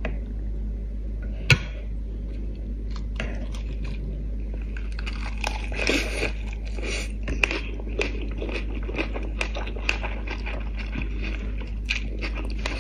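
Close-up eating sounds: wet chewing and crunching of a lettuce wrap of fish and rice noodles, with many small smacks and clicks. A single sharp tap about a second and a half in is the loudest sound, and a low steady hum runs underneath.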